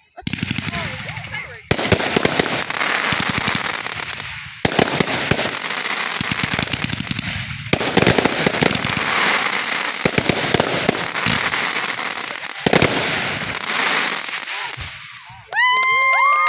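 Fireworks crackling: about five dense runs of rapid crackles, each starting suddenly and fading away. Near the end a loud, steady whistling tone cuts in.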